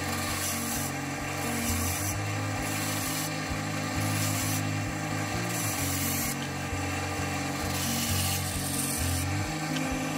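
A bandsaw cutting small blocks off a strip of wood, heard under background music with a steady beat.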